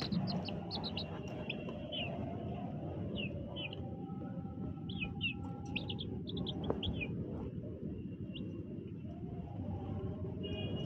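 Young chicken chicks peeping: short high chirps that come in scattered clusters, some falling and some rising in pitch, over a steady low background noise.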